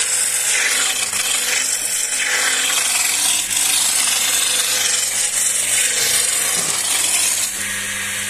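Skew chisel cutting a spinning ash walking-stick blank on a wood lathe: a steady hissing shear of shavings over the hum of the lathe motor. The cutting eases off about seven and a half seconds in, leaving the motor hum.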